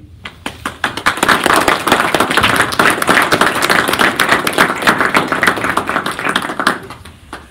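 Audience applauding: a dense run of many hands clapping that builds within the first second, holds, and dies away near the end.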